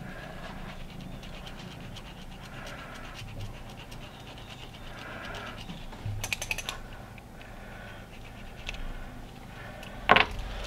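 A dried-out felt-tip marker scratching over a basswood lure blank in short strokes every couple of seconds. A quick run of clicks comes about six seconds in, and a sharp knock, the loudest sound, near the end.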